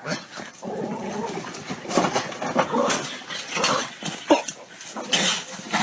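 A dog making a run of short, irregular vocal sounds.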